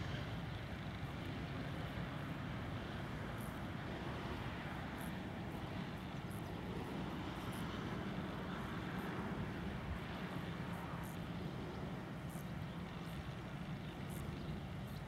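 Freight train of covered grain hopper wagons, hauled by a MÁV M41 diesel locomotive, rolling away along the track: a steady low rumble.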